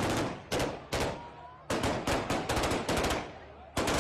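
Bursts of automatic gunfire fired into the air, rapid evenly spaced shots: two short bursts in the first second, a longer burst in the middle, and another starting near the end.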